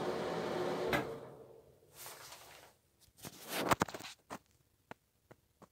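Broan ceiling exhaust fan running with a steady whoosh and hum, then a click about a second in as it is switched off, after which the fan winds down and fades out over a second or two. A few knocks and light clicks follow, the loudest cluster about halfway through.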